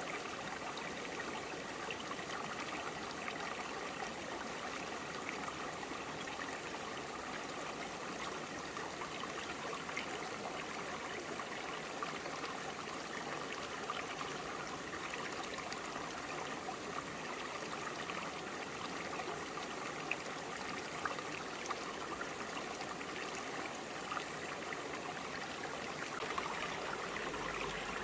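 Shallow forest stream flowing over broad rocks: a steady rushing babble with small trickling splashes.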